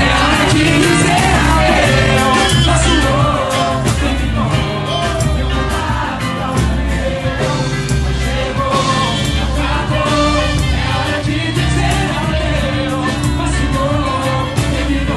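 Live samba band playing, with a lead voice singing over driving percussion and bass.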